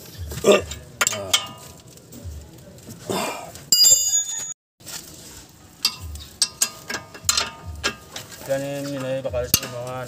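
Steel wrench clicking and clinking against suspension bolts on a car's front steering knuckle, with a short metallic ring about four seconds in.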